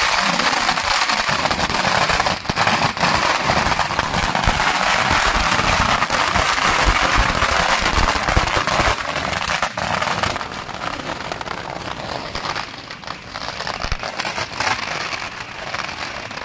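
A long string of firecrackers going off in a dense, rapid crackle of bangs, thinning out and getting quieter after about ten seconds.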